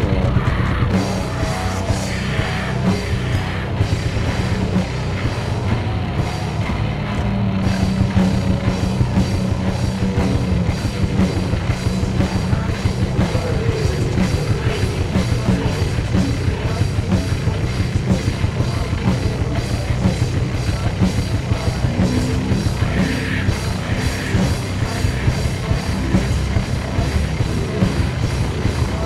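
Music with a steady, driving drum-kit beat over a heavy low bass.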